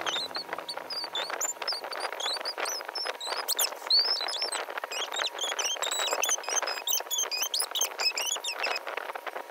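Small birds chirping in a busy, overlapping chorus of short high notes that bend up and down, with faint clicking beneath.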